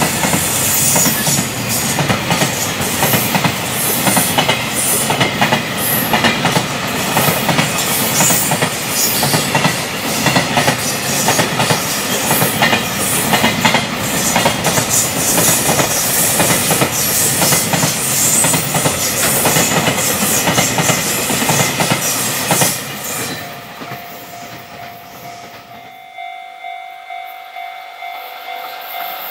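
A Japanese freight train passing at high speed, its wagon wheels clattering rapidly over the rail joints. About 23 seconds in, the clatter drops away suddenly as the end of the train goes by, leaving a much quieter sound with a few faint steady tones.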